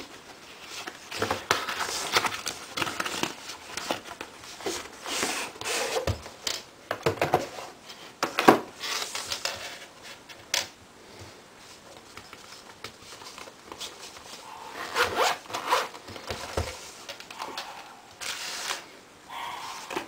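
Handling noise from a cardboard box and a fabric carry case being opened by its zipper: irregular bursts of rustling, scraping and zipping.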